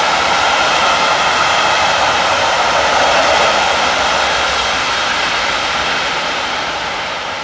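Freight train of large covered hopper wagons rolling past: a steady, loud rush of steel wheels on rail that begins to fade over the last couple of seconds as the end of the train pulls away.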